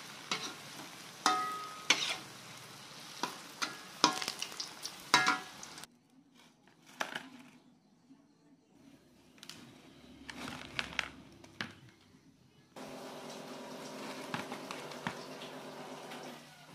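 Cassava balls sizzling as they deep-fry in a wok of hot oil, with a metal spatula clacking and scraping against the pan as they are turned. About six seconds in the sizzling stops, giving way to light taps and clinks of a wire strainer and fried balls dropping into a plastic bowl. A steady hiss comes back for the last few seconds.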